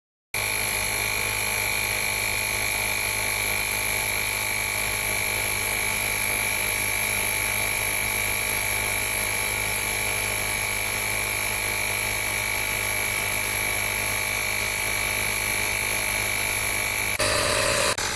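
Portable cordless tire inflator's compressor running steadily with a high whine. It changes sharply for a moment near the end, then cuts off.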